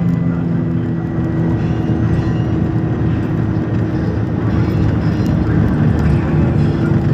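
Road vehicle engine running steadily with traffic noise, a continuous low rumble with a held hum.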